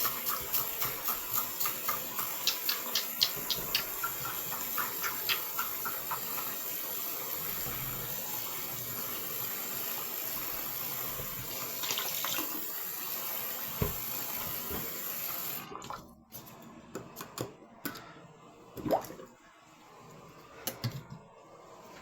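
Faucet water running into a freshly unclogged sink drain. For the first several seconds a rapid glugging, about four a second, runs over it as bleach is poured from its bottle. The water cuts off suddenly about three-quarters of the way through, followed by a few light knocks.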